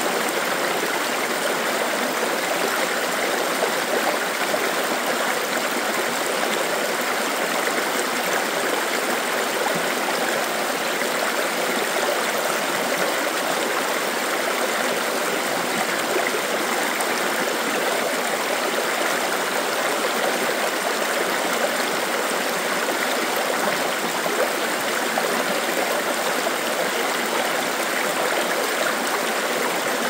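A small forest river flowing steadily over rocks: a continuous rushing and babbling of water, even in level.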